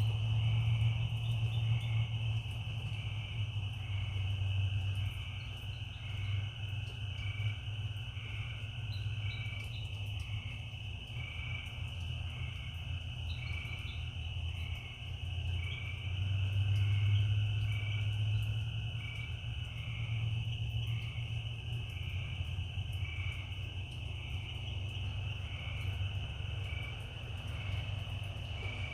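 Night chorus of crickets and frogs: a steady high-pitched insect trill, with a shorter chirping call repeating about once a second. Underneath runs a low drone that swells twice, near the start and again about halfway through.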